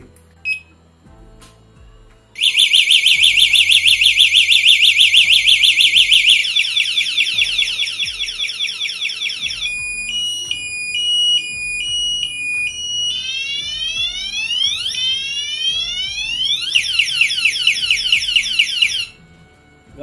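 Strauss wireless bicycle anti-theft alarm: a short beep, then its loud electronic siren cycling through several different tones (fast warbles, alternating two-tone beeps and sweeping whoops) before it shuts off by itself near the end.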